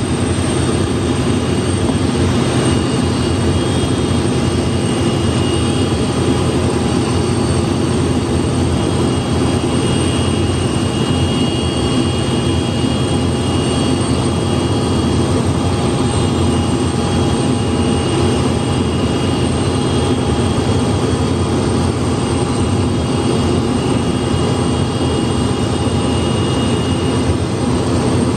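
Steady turbine rumble with a constant high whine, typical of a parked Antonov An-124-100's auxiliary power unit running on the ramp while its nose visor is raised.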